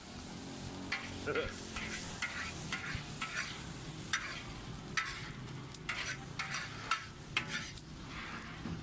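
Char koay teow sizzling in a wok while a metal spatula scrapes and clinks against the wok in short, irregular strikes, as the noodles are scooped up onto a plate.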